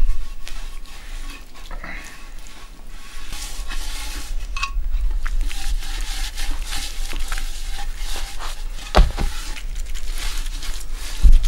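Oil-soaked cloth rags rubbing mustard oil over hand-carved stone pots, a continuous wet scrubbing sound with small clicks of stone against cloth. Two dull thumps, one about nine seconds in and one near the end.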